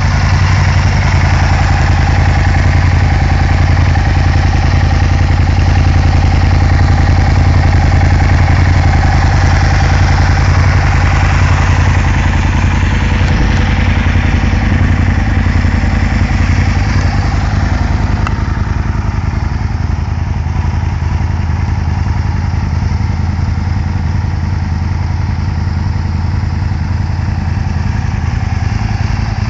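Aprilia Tuono 1000 R Factory's 60° V-twin engine idling steadily, a little duller in the last third.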